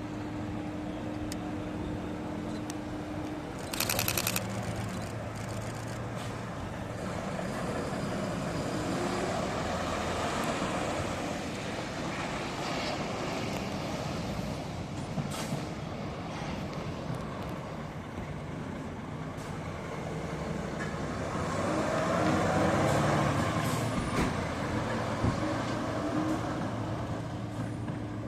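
Volvo FH heavy tractor unit's diesel engine running as it slowly hauls a low-loader trailer carrying a railcar, with a short burst of air-brake hiss about four seconds in. The engine note swells twice as it pulls, loudest a little past the middle.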